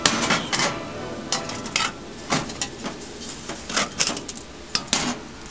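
Stainless steel steamer pot and its perforated insert clanking and rattling as they are handled, a string of irregular metal knocks and clicks with the loudest one right at the start.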